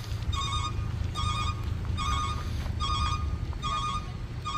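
An electronic beeper sounding a repeating warbling tone, one pulse about every 0.8 seconds, over a low engine rumble.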